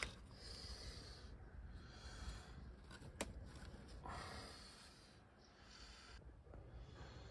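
Near silence: faint handling noise, with one light click about three seconds in.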